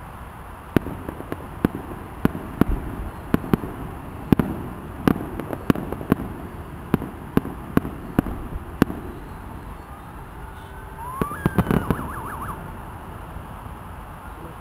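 Fireworks shells bursting: a rapid run of sharp bangs, about two a second, over the first nine seconds. About eleven seconds in comes a tighter cluster of bangs with a short rising whistle-like tone and a wavering tone.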